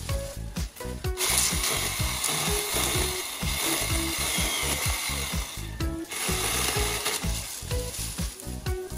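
Small handheld mini chainsaw running and cutting through weeds and dry palm fronds, starting about a second in with a short break around six seconds, over background music with a steady beat.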